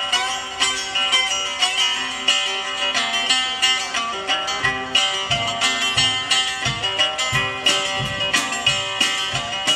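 Live blues from a guitar and drum kit: picked archtop guitar notes over a steady drum beat with cymbals, the kick drum thumping more strongly from about halfway through.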